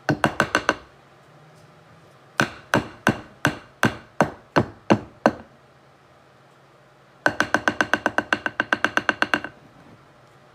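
A utensil tapped repeatedly against a ringing metal bowl or pan, each strike giving a short metallic ping. There are two runs: about nine slower taps, then a faster burst of about twenty.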